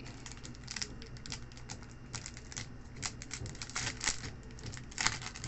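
Thin clear plastic sleeve crinkling and crackling in the hands as a trading card is worked out of it, with irregular sharp crackles, the loudest about five seconds in.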